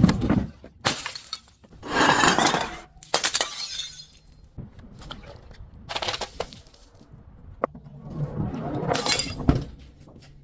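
Glass bottles breaking: a run of sharp cracks and shattering crashes, with longer crunching shatters about two seconds in and again near the end.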